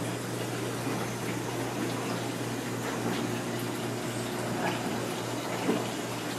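Water splashing and trickling in a row of aquarium sales tanks, over the steady low hum of their circulation pumps. A couple of light knocks come near the end.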